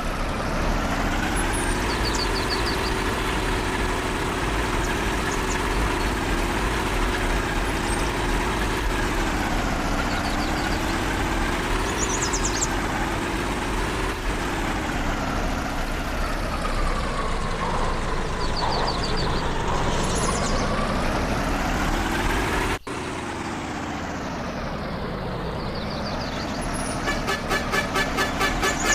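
Off-road vehicle engine running, its pitch slowly rising and falling as the revs change, with a few short high squeaks now and then. The sound cuts abruptly about 23 s in, then continues, and a fast, even pulsing sets in near the end.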